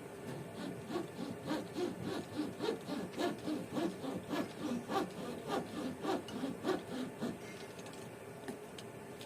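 Windscreen cutting string being sawn back and forth through the urethane adhesive bead holding the glass, in quick regular rubbing strokes of about two to three a second that stop about seven seconds in.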